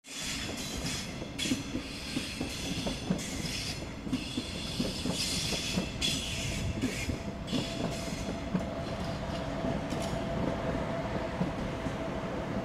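A passenger train moving through the station tracks, its wheels clicking and clattering over rail joints and points. About halfway through, a steady high squeal sets in and holds.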